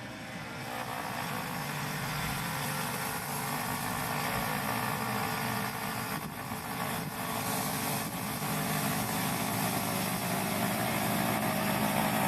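Yamaha YT1070 crawler snowblower engine running steadily, getting louder over the first couple of seconds.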